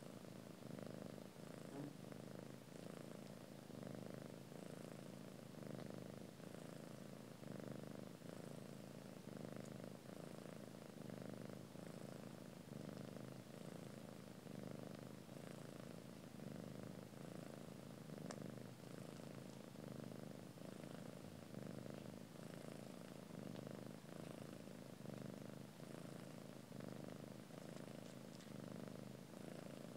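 Cat purring close up, steady and pulsing in a slow, even rhythm, from a grey mother cat and her newborn kittens as they nurse.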